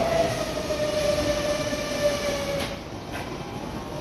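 Meitetsu 6500/6800 series electric train rolling into the platform and braking to a stop, with a steady whine that sinks slightly in pitch and cuts off about two and a half seconds in. Two short clicks follow as it comes to rest.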